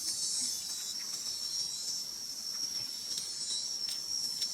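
Insects chirring in a steady, high-pitched chorus, with a few faint clicks in the second half.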